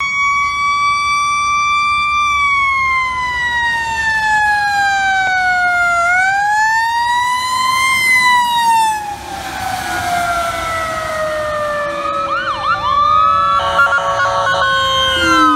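Fire engine siren wailing, sliding slowly down and back up in pitch, then dropping as the truck passes. A few seconds later an ambulance siren adds quick yelping sweeps and a fast pulsing near the end.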